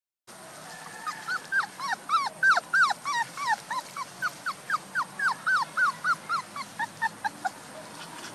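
Month-old puppies whimpering: a rapid run of short, high whines, about three or four a second, starting about a second in and tailing off near the end.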